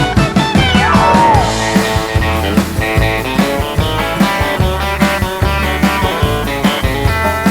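Background music: a guitar-driven rock/country song with bass and drum kit keeping a steady beat.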